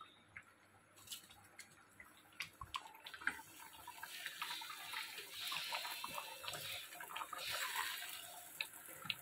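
A few light wooden knocks, then from about three seconds in a soft, crackling, bubbling hiss of thick cauliflower-and-pea gravy simmering in a pan on the gas stove.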